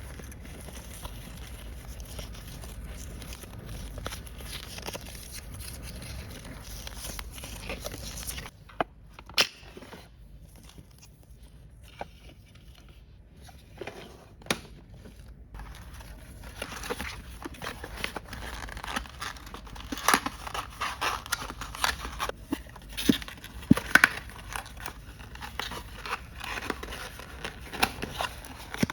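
Plastic packaging crinkling and rustling as it is handled, with sharp clicks of small plastic toy parts. The clicks come now and then in the middle and grow busier in the second half.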